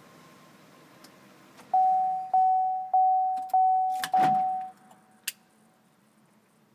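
Chevrolet Aveo's cabin warning chime sounding five times, evenly spaced about half a second apart, with the engine switched off. A few sharp clicks come around it, one a little after the chime stops.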